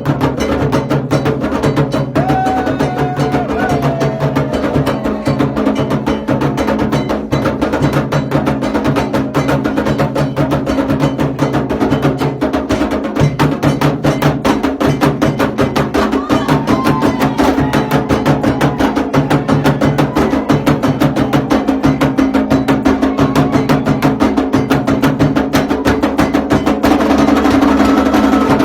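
Candomblé atabaque drumming: a fast, unbroken toque of dense hand strokes with a sharp wood-block-like clicking percussion on top. It grows a little louder near the end.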